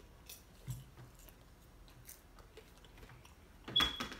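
Someone chewing crunchy caramel popcorn: faint, scattered crunches and clicks, with one louder crackle near the end.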